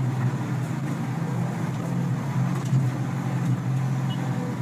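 Steady engine and road drone inside the cabin of a moving armoured police vehicle.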